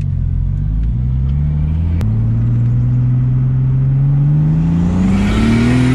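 Turbocharged BMW E30's straight-six engine accelerating, heard from inside the cabin. A sharp click and a small drop in pitch come about two seconds in, then the revs climb steadily, with a hiss growing in near the end.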